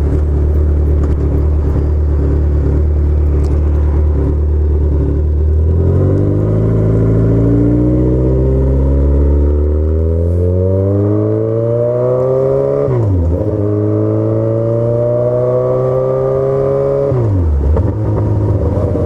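Kawasaki Z1000's inline-four engine through Black Widow race headers and Vance & Hines Urban Brawler mufflers with no silencers, very loud. It holds a steady low note for about six seconds, then the bike accelerates with the pitch climbing, dropping sharply and picking up again twice as it shifts up.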